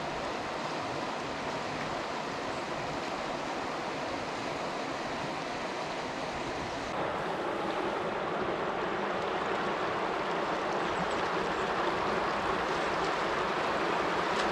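Metolius River flowing, a steady rush of water over riffles, becoming a little louder about halfway through.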